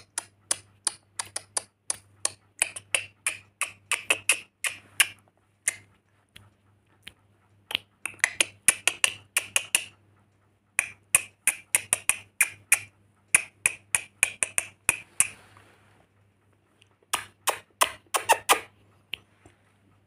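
Lorikeet making quick runs of short, sharp clicking chirps, several a second, in a few bursts with brief pauses between them.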